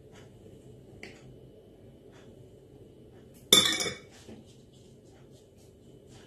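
A metal fork is set down on a dish with a single sharp clink about three and a half seconds in, ringing briefly. Around it there are only faint light ticks and rustles of hands spreading ground almonds over filo.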